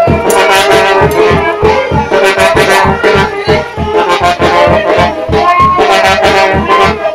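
Brass band music with trombones and trumpets playing held melody notes over a steady, quick beat, accompanying a traditional dance.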